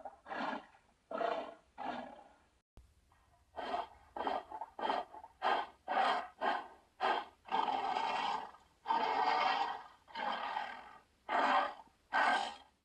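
Giant-monster (kaiju) creature sound effects: a quick run of short growls and grunts, then two longer roars one after the other, ending with two more short growls.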